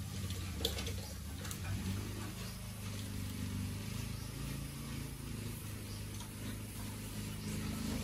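A steady, low, engine-like motor hum, with a few light clicks in the first couple of seconds.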